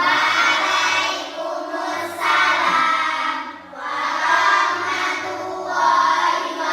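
A group of children singing together in unison, in phrases with short breaks about two and three and a half seconds in.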